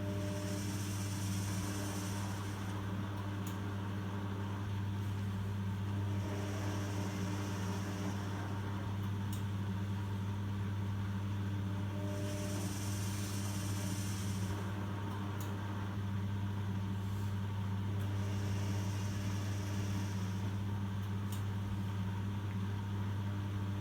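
Privileg washing machine running: a steady motor hum with a hiss that comes and goes about every six seconds.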